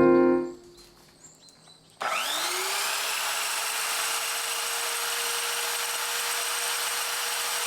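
Electric power tool motor switched on about two seconds in, spinning up with a quickly rising whine and then running steadily at full speed with no change in load.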